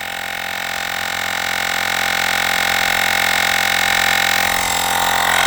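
Olgeo M7 portable air compressor running as it pumps up a flat car tire: a steady, whining mechanical drone that grows slightly louder over the seconds.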